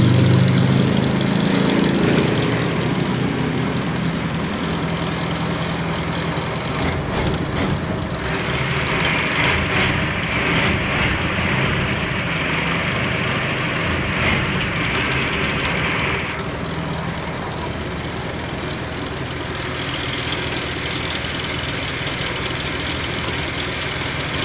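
Mitsubishi 4D30 four-cylinder diesel engine idling steadily, with a light valve-train clatter from valve clearances that have opened up and need adjusting. From about eight to sixteen seconds in, a brighter hiss rides over the engine.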